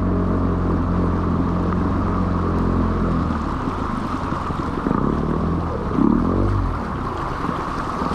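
Small Yamaha outboard motor running on a boat, over water and rushing noise. Its note is steady for the first three seconds or so, then changes and wavers, with a shift in pitch about six seconds in.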